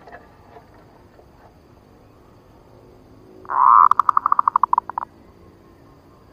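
Zebra dove (perkutut) cooing once: a loud opening note runs into a fast series of about a dozen short, clipped notes, about a second and a half long in all, a little after halfway through.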